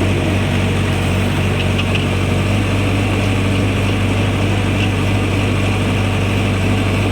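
Backhoe's diesel engine running steadily with an even low hum.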